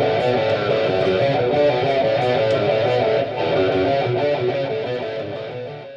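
Guitar music, a quick run of picked notes, fading out over the last couple of seconds.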